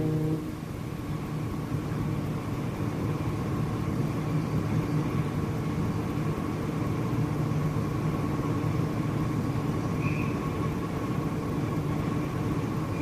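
Steady low mechanical rumble with a faint hum, after a deep horn-like tone cuts off right at the start.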